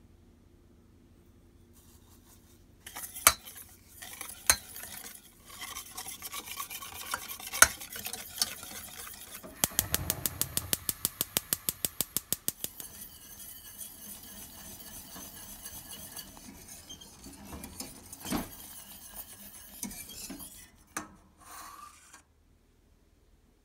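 Wire whisk stirring liquid in a stainless steel saucepan, scraping and clinking against the pan's sides and rim. The stirring starts about three seconds in, with scattered sharp clinks. Near the middle there is a few-second run of fast, regular clinks as it whisks briskly. It stops shortly before the end.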